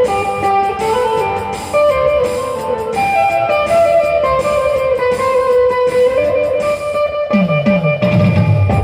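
Instrumental intro of a Bhojpuri song: a plucked electric-guitar-like melody moving in steps. About seven seconds in, repeated falling low drum notes join it.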